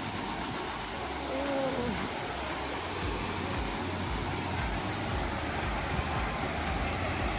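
Cheeyappara waterfall's falling water making a steady rushing noise, with faint voices briefly audible about a second in.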